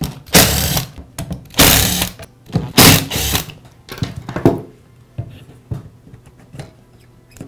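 A power drill-driver backing screws out of an angle grinder's rear housing, running in three short bursts in the first few seconds. After that come light clicks and knocks of screws and housing parts being handled.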